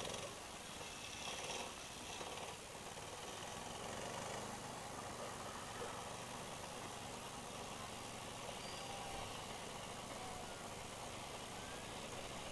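Steady faint hum of a distant engine running under open-air background noise, with a few faint short chirps in the second half.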